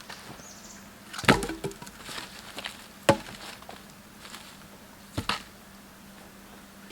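Three sharp knocks on wood, about two seconds apart, with smaller cracks and crackles between the first two.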